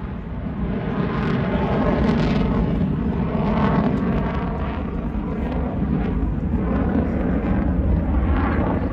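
An airplane's engine noise as it flies past, swelling about a second in and staying loud over a low rumble.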